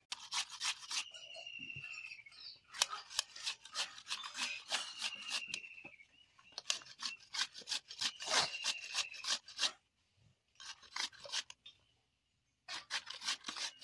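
Carrot being grated on a stainless-steel hand grater: runs of quick rasping strokes across the metal teeth, broken by short pauses.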